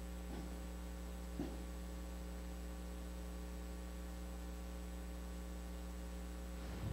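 Steady electrical mains hum with several stacked tones, picked up on the church's sound feed, with a few faint soft knocks about a second in and near the end.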